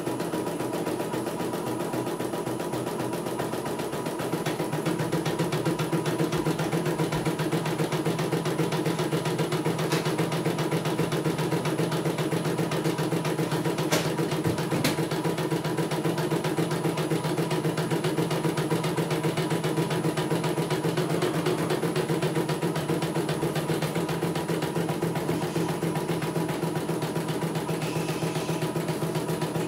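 CNY E900 portable computerized embroidery machine stitching a design, a rapid, even clatter of needle strokes that runs steadily and grows slightly louder about four seconds in. A couple of short clicks come around the middle.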